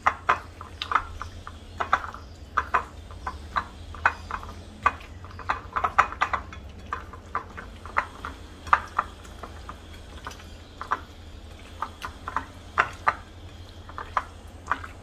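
Hand mixing marinated chicken pieces with beaten egg in a ceramic plate: irregular wet squelches and slaps, with sharp clicks against the plate, over a low steady hum.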